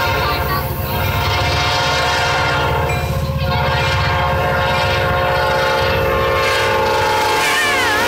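Illinois Central diesel locomotive sounding its multi-chime air horn in long held blasts as it approaches and passes, with a short break about three seconds in, over the low rumble of the diesel engines. Near the end the horn's pitch dips as the lead unit goes by.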